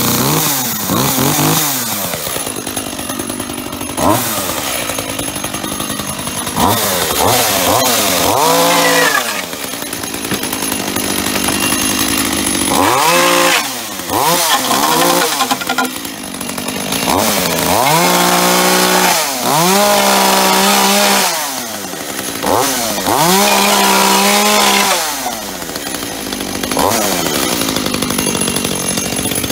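Makita MEA3201M 32cc two-stroke chainsaw engine running, revved up and let fall back to idle over and over. Between revs it holds steady at full speed for a few seconds at a time while cutting through wooden pallet boards.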